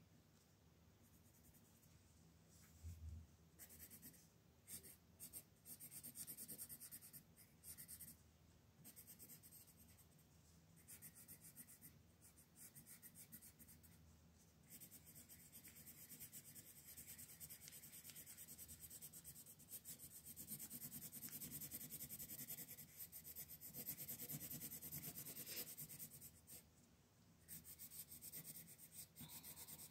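Colored pencil scratching on paper while coloring in: a soft low bump about three seconds in, then short bursts of strokes, and later a longer run of steady back-and-forth shading with a brief pause near the end.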